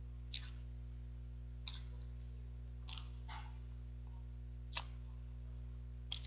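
Small sharp mouth clicks and smacks from biting and chewing a soft steamed rice cake (baekseolgi), about six spread over a few seconds, over a steady low electrical hum.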